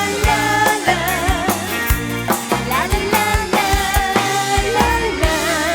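Live band music at full volume: drum kit and bass keep a steady beat under a wavering lead melody.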